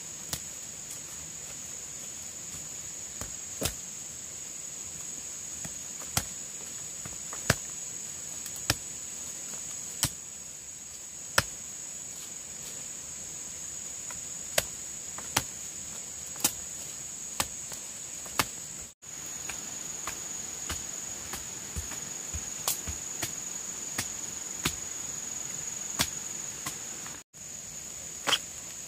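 Steady high-pitched drone of insects, crickets or cicadas, with sharp knocking strikes spaced irregularly, roughly one every second or so.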